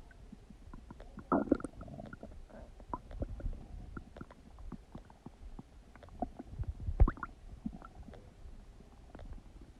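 Human stomach gurgling and rumbling while digesting: irregular low rumbles broken by many small pops and bubbling clicks. Louder gurgles come about a second and a half in and again about seven seconds in.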